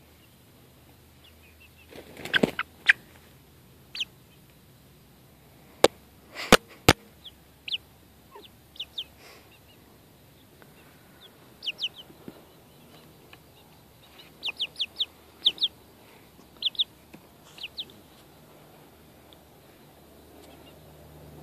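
Young chickens peeping in short high calls, often in quick runs of two to four, with a flurry of wing flapping about two seconds in and a few sharp taps around six to seven seconds in.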